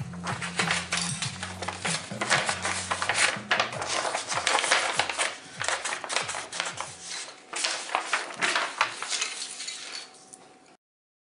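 Coloured pencils clicking and clattering against each other and a sheet of drawing paper rustling as it is handled, with scratchy pencil-on-paper rubbing; the sound cuts off suddenly near the end.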